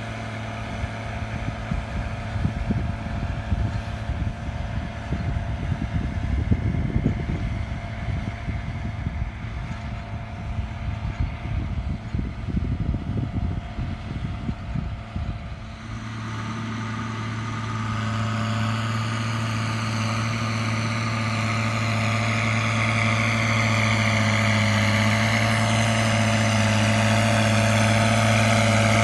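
New Holland T7070 tractor's six-cylinder diesel engine running under load as it drags a land leveller. For the first half it is distant and mixed with wind rumbling on the microphone. About halfway through it comes in close as a steady drone that grows louder as the tractor approaches.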